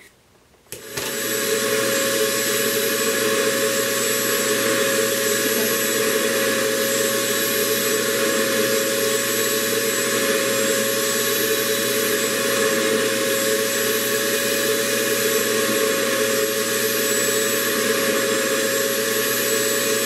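RevAir reverse-air hair dryer switched on about a second in and running steadily: a vacuum-like rush of suction air with a steady whine, drawing a section of hair into its wand to dry it.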